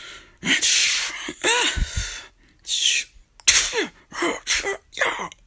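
Vocal fight sound effects made by mouth: a string of short breathy, hissing bursts with a few brief grunts or cries among them.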